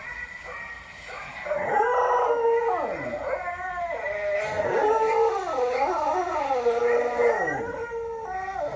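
Dog howling, joined by dog howls played back from a recorded video. Several long howls overlap, rising and falling in pitch. They grow louder from about a second and a half in.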